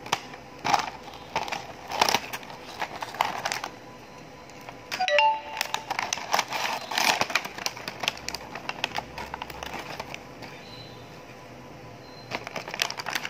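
Scissors snipping and plastic packaging crinkling and crackling as a toy monkey is cut out of its blister pack and clear wrapping. A short chime-like tone sounds about five seconds in.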